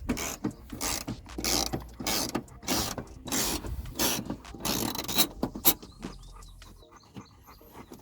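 Socket ratchet with an extension being cranked back and forth to undo a bolt, a burst of clicking with each stroke, roughly one to two strokes a second. The strokes stop about six seconds in, leaving a few faint clicks.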